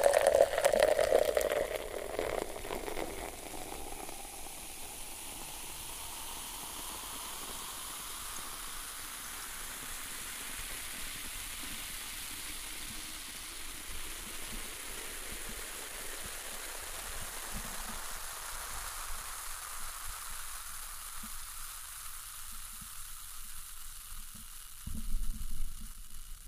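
Beer poured into a glass, the stream splashing loudly for the first two or three seconds, then the foam head fizzing steadily with a fine crackle of popping bubbles. A brief louder noise comes near the end.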